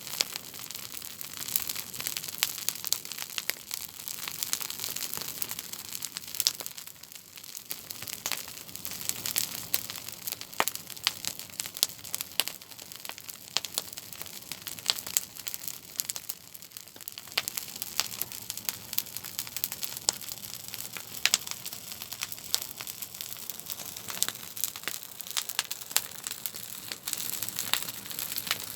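Campfire crackling, with many sharp irregular snaps and pops over a steady hiss.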